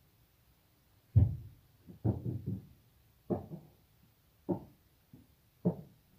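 A string of irregular knocks and thuds. The loudest comes about a second in, a quick cluster follows around two seconds, then single knocks roughly once a second, each dying away quickly.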